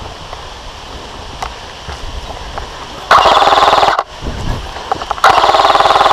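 Airsoft rifle firing two rapid full-auto bursts, each about a second long, about three and five seconds in.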